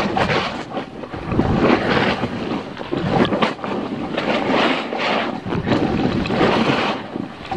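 A snowboard's edges scraping and hissing over snow during a downhill ride, with wind rushing over the microphone. The noise comes in uneven surges.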